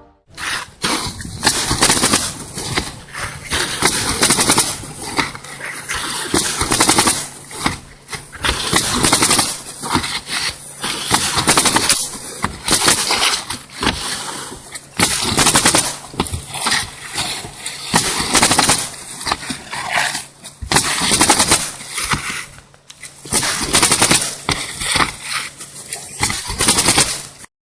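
Construction work noise: rapid, irregular banging and clattering of hand tools and building materials, many sharp hits a second, over a faint steady low hum.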